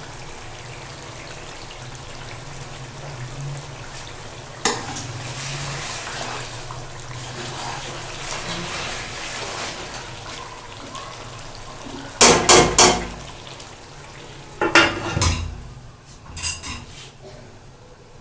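Metal cookware clattering: a utensil knocks against a cooking pot several times in quick succession about twelve seconds in, again about fifteen seconds in, and lightly once more near the end. Under it is a steady faint hiss of the curry cooking.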